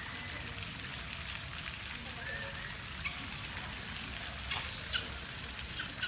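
Steady hissing outdoor ambience with a few faint, short bird whistles, about a second apart early on and again a little after two seconds in, and a few light clicks near the end.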